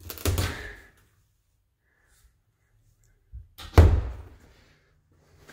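Painted cabinet doors being shut: a short thump at the start, then a small click and a louder, sharp thump a little under four seconds in, fading over about a second.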